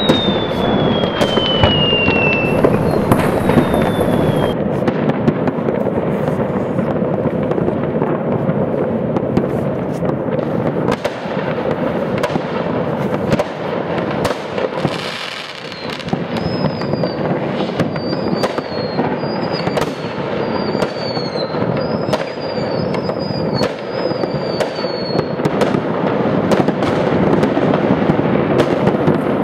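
Fireworks and firecrackers going off all over a city at once, heard as a continuous crackle of distant bangs with sharper, nearer reports among them. A falling whistle sounds at the start, and a run of short whistles comes in the middle.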